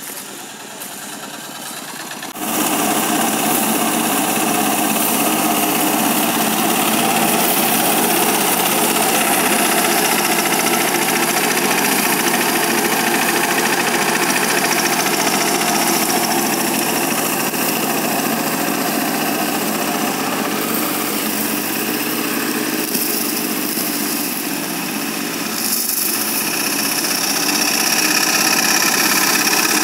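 Engine running steadily, much louder from about two seconds in.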